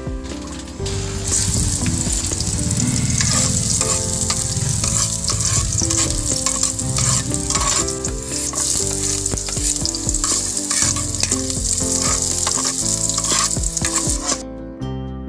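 Chopped onion frying in hot cooking oil in a pot, sizzling loudly while a spatula stirs it. The sizzle starts about a second in and drops away near the end.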